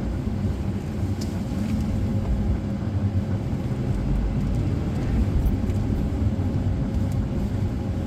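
Car running, a steady low rumble.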